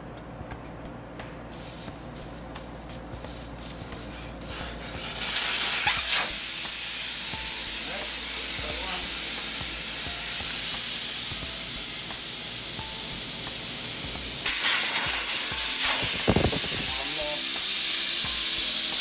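Compressed air hissing at a tire, first in short spurts and then loud and continuous from about five seconds in, with a brief knock near the end.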